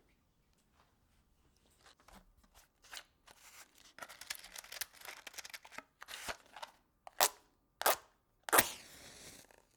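A box of matches handled, with the matches rattling and clicking. Then a match is struck twice in short scrapes, and on a third strike it catches, flaring with a hiss for about a second.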